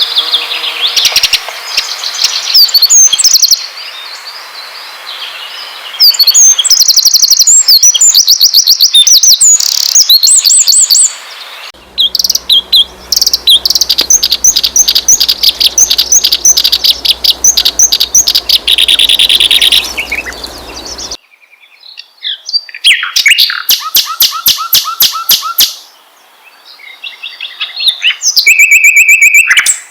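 Songbirds singing loud, fast chirps and trills, spliced from several recordings that change abruptly a few times. This is a lure track meant to set caged songbirds singing.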